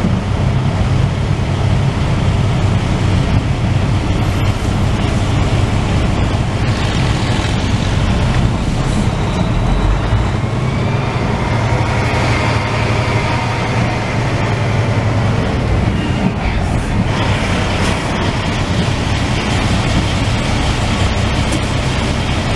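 Semi truck's diesel engine running steadily at low speed, heard from inside the cab as the truck creeps forward through a toll lane.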